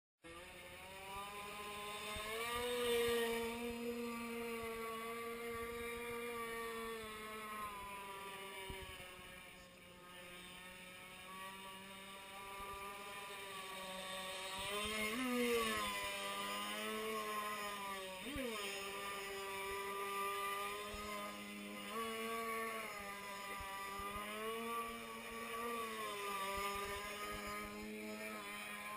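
Engine of a 1/4-scale Jettec aluminium RC jet boat, a small two-stroke with a tuned pipe, running on the water. Its pitch rises and falls as the throttle is worked, with a couple of quick drops and recoveries in revs, and it swells and fades in loudness.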